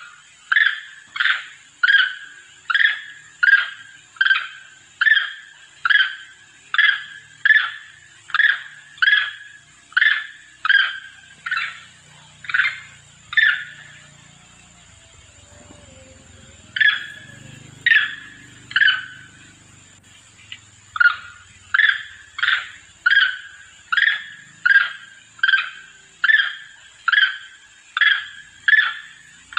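Long-tailed macaque calls played as a hunting lure: short, sharp calls repeated about one and a half times a second, with two pauses of a few seconds midway. A steady high-pitched whine runs underneath.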